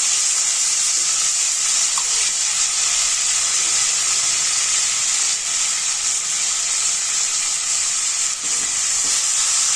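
Finely chopped onion and tomato frying in hot oil in a pan: a steady, loud sizzle.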